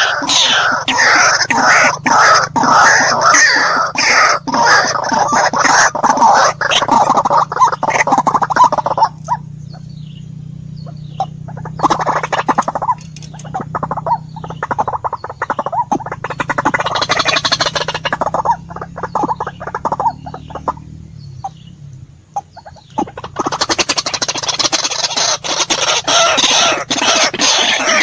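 White-breasted waterhen (ruak-ruak) calling, loud rapid repeated harsh notes. They thin out for a long stretch in the middle, where a steady low hum sits underneath, then return at full strength near the end.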